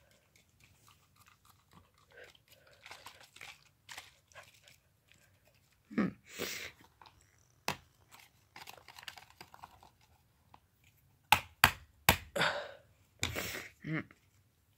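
Hissing squirts of a spray bottle onto a laptop screen and the scratchy scrubbing of a bristle hairbrush across the glass, with sharp knocks as the brush or bottle hits the laptop, three in quick succession about three-quarters of the way through.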